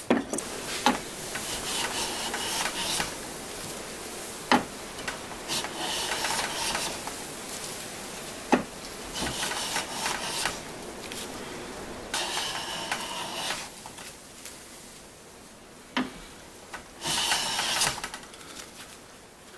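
Japanese pull saw cutting soft maple, likely trimming flush, in about five separate rasping strokes of a second or so each, with a few sharp knocks of wood or tool between them.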